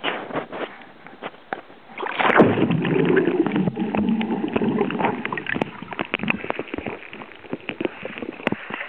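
Seawater sloshing and splashing around a camera held at the surface. About two seconds in the camera goes under, giving a loud, muffled underwater rush and gurgle for a few seconds. After that come quicker small splashes and lapping as it surfaces again.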